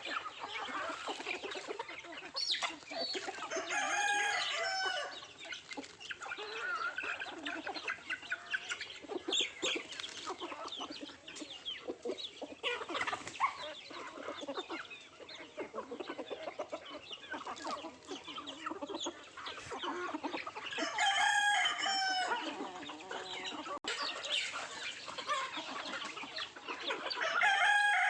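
Country chickens clucking continuously while pecking at feed, with many short ticks, and a rooster crowing three times in long, loud calls: about four seconds in, about three-quarters of the way through, and again at the end.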